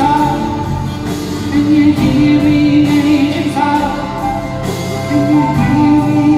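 Live music in a large concert hall: a singer holding long, slightly wavering notes over guitar accompaniment.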